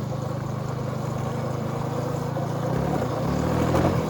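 Small pit-bike engine running steadily, its pitch shifting about three seconds in.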